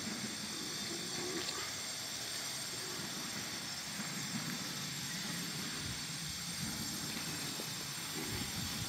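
Steady outdoor background noise, a low rumble with a faint hiss and no distinct event.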